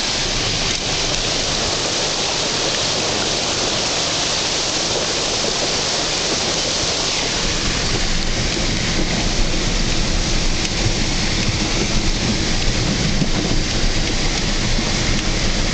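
A vehicle driving through flood water over a road: a steady rush of water splashing and spraying against the wheels and body. About halfway through, a heavier, uneven low rumble joins it as the water gets deeper.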